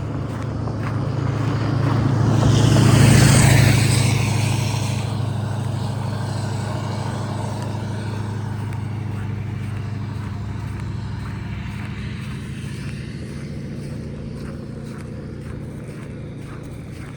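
A motor vehicle driving past: engine hum and tyre rush grow louder to a peak about three seconds in, then fade slowly away.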